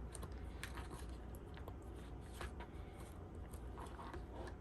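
Faint scattered clicks and scratching of an old ear pad being pried and tugged at on Beats headphones, the pad stuck fast and hard to separate.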